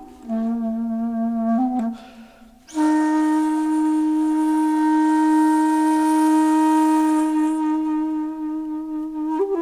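Solo flute music, breathy in tone: a few short low notes, a brief pause, then one long held note from about three seconds in.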